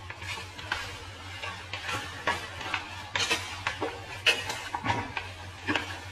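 A string of quick kisses: lips smacking sharply, about two a second, over a low steady hum.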